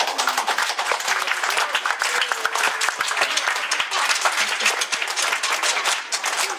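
Audience applauding: many people clapping in a dense, steady patter that dies away at the end.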